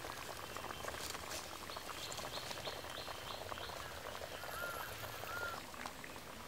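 Birds calling: a quick run of about six short high notes, then three arched notes a little later. Under them, faint crackling and ticking comes from the wood-fired clay stove with a pot of curry simmering on it.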